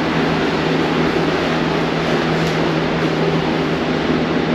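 Steady mechanical hum over an even airy rush.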